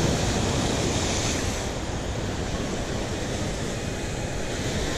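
Rough surf breaking and washing over coastal rocks, a steady rush of whitewater that is loudest in the first second or so.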